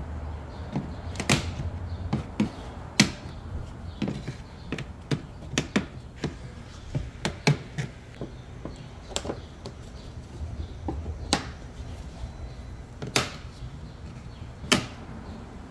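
Rubber cowl weatherstrip being pulled by hand off the plastic cowl panel of a Mazda CX-9, clicking and snapping in an uneven run as it comes free. The loudest snaps come about every two seconds, over a steady low hum.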